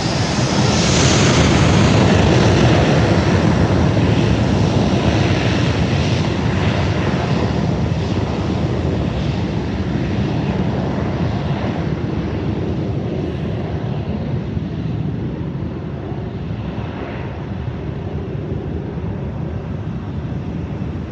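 Jet airliner passing close by with its engines roaring, loudest about two seconds in, then slowly fading away.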